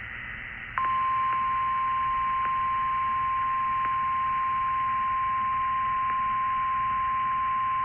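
Weather radio hissing with static, then under a second in the NOAA Weather Radio 1050 Hz warning alarm tone comes on: one steady high tone, the alert sounded ahead of a severe thunderstorm warning message.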